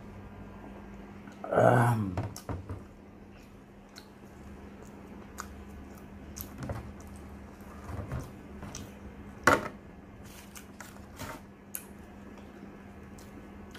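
A man gives a short, loud burp with a falling pitch just after drinking from a glass. It is followed by scattered light clicks and knocks of a tin can and a ceramic plate being handled, the sharpest knock about two-thirds of the way through.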